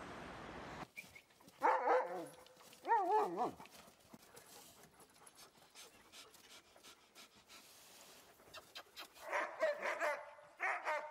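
Sled dogs yelping in short, wavering calls: two brief bursts about two seconds in, then a quieter stretch, then a cluster of excited yips and barks near the end. A steady outdoor hum cuts off about a second in.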